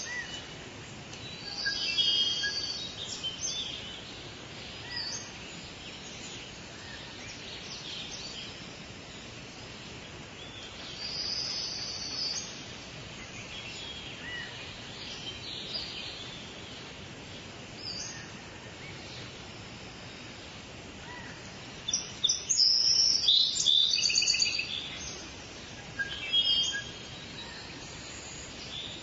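Forest songbirds singing in short bursts of rapid high chirps over a steady background hiss, with the loudest and busiest burst about three quarters of the way through.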